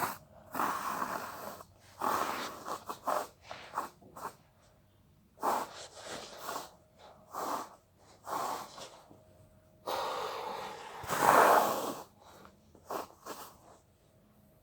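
Breathy puffs and blowing noises from a person close to the microphone, in a series of irregular bursts, the longest and loudest a little after ten seconds in.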